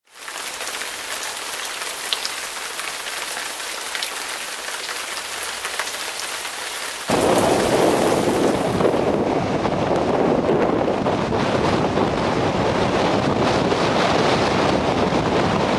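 Storm wind and rough breaking surf as a steady hiss that turns abruptly louder and deeper about seven seconds in, with wind rumbling on the microphone.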